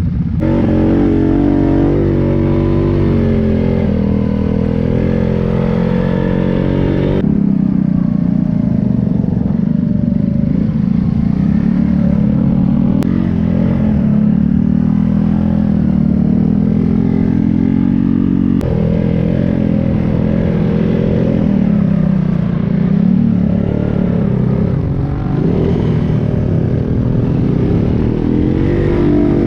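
ATV engine running under load, its pitch rising and falling as the throttle is worked. The sound changes abruptly about 7 seconds in and again near 19 seconds.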